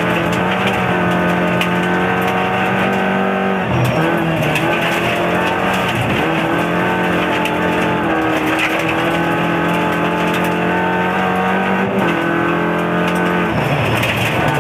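Rally car engine at high revs, heard inside the cabin, its pitch dipping briefly at gear changes or lifts about four, six, twelve and thirteen and a half seconds in. Sharp ticks of gravel strike the car throughout.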